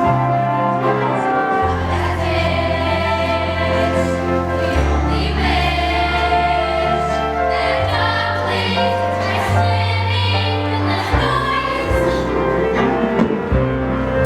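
A musical-theatre number: several voices singing together over instrumental accompaniment, with held bass notes that change every couple of seconds.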